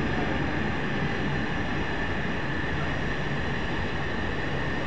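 Container freight train's flat wagons rolling steadily past: a continuous rumble of wheels on rail with a steady high-pitched ring above it.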